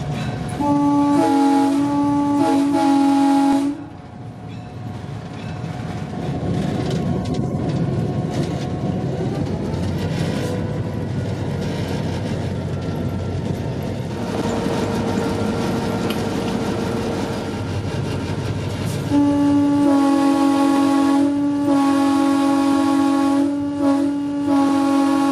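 EMD GP9 diesel locomotive's air horn sounding a chord: a few short blasts near the start, then a run of long blasts with brief breaks over the last six seconds. Between them the diesel engine runs and the wheels ring on the rails.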